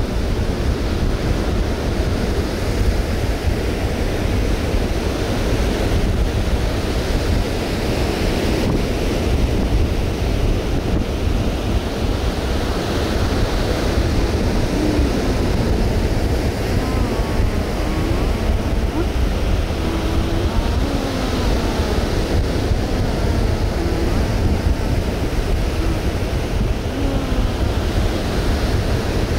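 Ocean surf breaking and washing up the beach in a steady roar, with wind buffeting the microphone.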